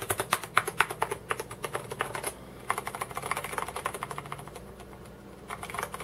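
Typing on an Ajazz AK510 mechanical keyboard with tactile brown-type switches: a quick run of key clacks, a brief pause a little after two seconds, then more keystrokes that thin out and soften before picking up again near the end. The keys bottom out solidly, on what is taken for a steel plate.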